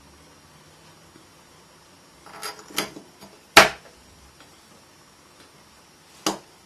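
Clicks and knocks of a USB cable being handled and its plug pushed into the USB hub's 2-amp charging port, the loudest a single sharp click a little past halfway. One more sharp knock near the end.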